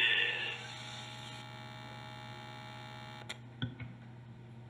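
Steady electrical mains hum from the hall's sound system, left once the film clip's sound fades out in the first half second, with two short clicks about three and a half seconds in.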